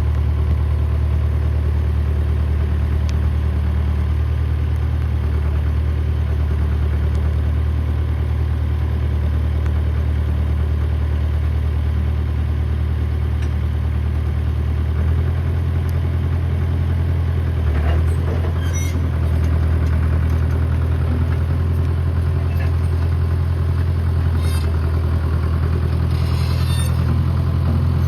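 Heavy machine engine idling steadily, its tone shifting slightly about halfway through, with a few light metallic clinks in the last third.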